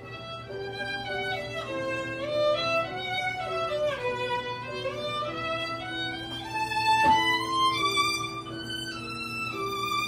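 Violin playing a melody of held notes with slides up and down between them. A short click sounds about seven seconds in.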